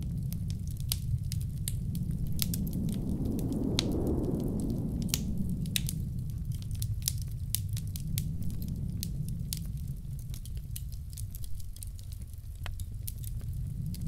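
Wood fire crackling in a fireplace with frequent sharp pops, over a low rushing blizzard wind that swells about four seconds in and again near the end.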